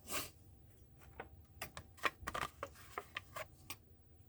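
Light handling sounds of a carded die-cast toy car package: a soft rustle, then a run of small irregular clicks and crinkles of its plastic blister and card.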